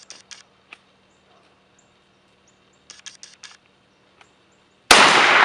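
A single shot from an SKS semi-automatic rifle (7.62×39mm) about five seconds in, sudden and loud, with a long echoing tail. Before it there are only faint, scattered bird chirps.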